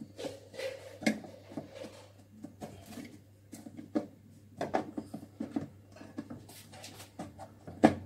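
Detergent dispenser lid of a Wonderchef mini dishwasher being pushed and worked to latch it: a series of irregular clicks and knocks while it won't close, with a louder click near the end as it snaps shut.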